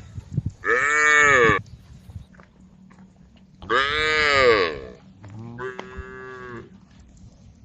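Cows mooing: three moos about a second long each, the first two loud and rising then falling in pitch, the third quieter and flatter.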